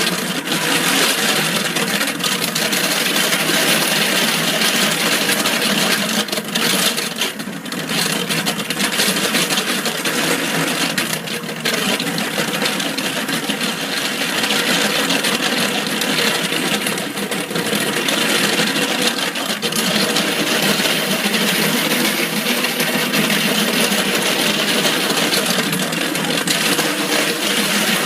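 Handheld power tool fitted with hardened steel bits running continuously, its bits grinding and chattering against a polyurethane-coated concrete crack repair.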